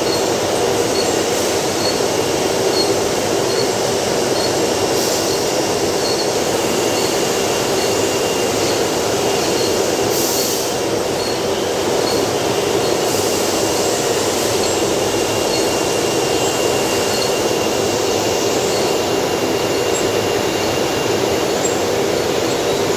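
Steady mechanical running noise with a thin high whine and a faint high tick repeating a little more often than once a second.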